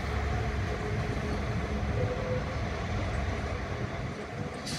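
Northern Class 195 diesel multiple unit pulling away slowly, its underfloor diesel engine giving a steady low rumble with a faint whine. There is one short knock near the end.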